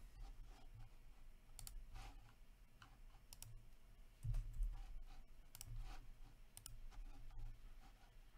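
Faint, irregular clicking of a computer mouse and keyboard, with a dull low bump about four seconds in.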